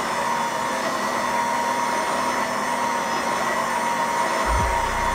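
Krups stand mixer running steadily with a high motor whine, its dough hook kneading a freshly floured yeast dough in the steel bowl. A low thudding joins near the end.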